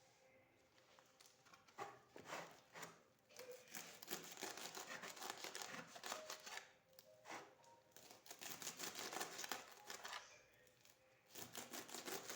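Fresh Swiss chard being cut up: quick runs of crisp snipping and crackling cuts, with short pauses around seven and ten seconds in.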